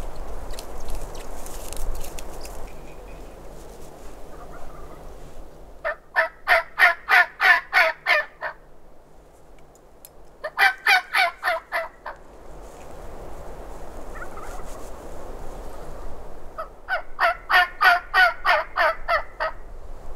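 Wild turkey gobbler gobbling three times. Each gobble is a loud, rapid rattling run of notes about two seconds long.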